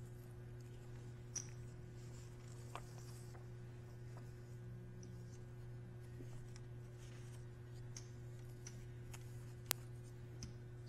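Quiet card-room ambience: a steady low hum with a few faint clicks of poker chips, the sharpest near the end as chips are pushed out for a bet.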